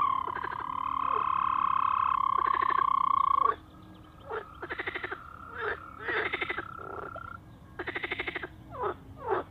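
Male toad calling in water: a long, even trill of about three and a half seconds, then a second trill of about three seconds. A chorus of short, rapidly pulsed croaks sounds between them, the mating chorus of a breeding pond.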